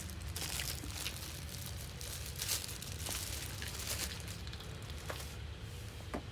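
Packaging being handled, crinkling and rustling, with a few light clicks of parts over a low steady hum.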